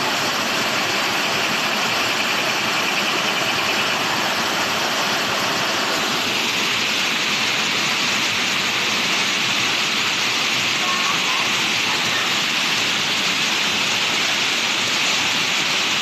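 Waterfall rushing steadily, water cascading over rock in an even hiss; it brightens a little about six seconds in.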